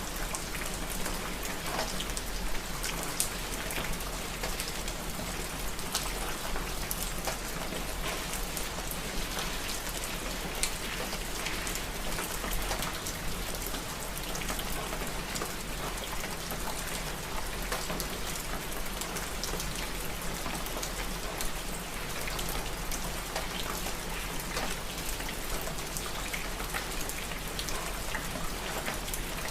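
Steady rain falling, with many separate drops ticking on a hard surface amid a constant hiss.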